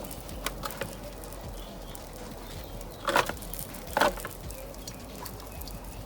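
Scattered light clicks and knocks from tongs and food being handled on a barbecue grill, with two louder, sharp clatters about three and four seconds in.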